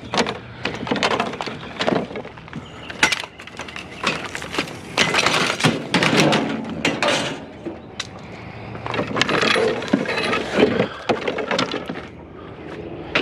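Junk being handled and tossed around by hand: an irregular string of clattering knocks, clinks and scrapes of hard objects striking each other.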